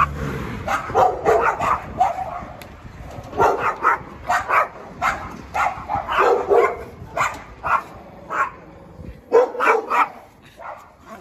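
Dog barking over and over in short, sharp barks about twice a second, with a brief pause near the end.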